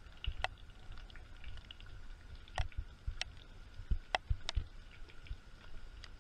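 Footsteps on a wet concrete walkway: soft low thumps about every half second, with several sharp slapping clicks. A faint steady high tone runs behind.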